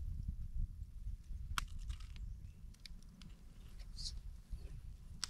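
Quiet low rumble with a few scattered small clicks and taps, and a brief high hiss about four seconds in.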